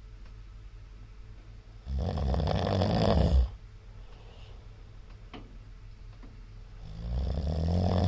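A middle-aged man snoring loudly in his sleep: two long snores about five seconds apart, each lasting about a second and a half and growing louder as it goes. A steady low hum runs underneath.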